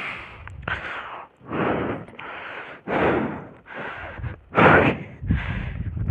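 A person's breathing close to the microphone: a run of rough, breathy exhales and puffs, about one a second, the loudest near the end.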